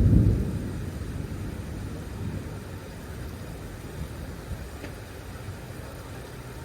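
Thunder rumbling, loud at first and dying away over about the first second into a fainter, drawn-out low rumble.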